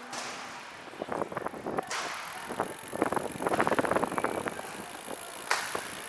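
Recumbent trike rolling along with wind and tyre rush, and a run of quick irregular clicking from the drivetrain for a few seconds in the middle.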